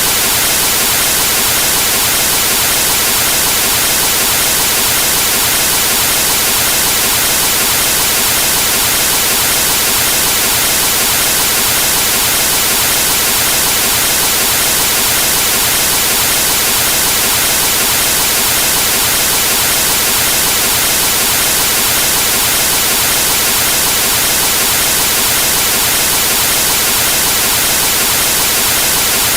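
Television static: a steady, loud white-noise hiss with no signal on the channel.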